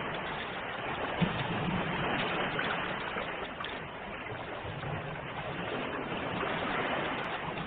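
Sea waves washing ashore: a continuous rush of surf that swells and eases slowly. A brief click sounds a little over a second in.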